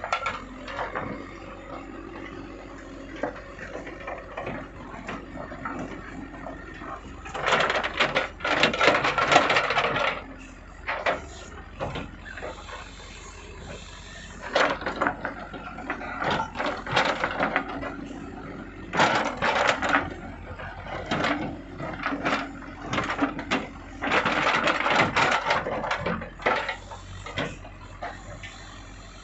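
Excavator at work: its engine runs steadily while loud bursts of rattling and scraping, each a second or more long, come four times as it works.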